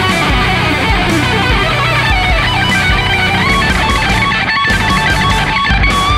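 Electric guitar solo on a Suhr Standard played through a Line 6 Helix, with fast runs of single notes.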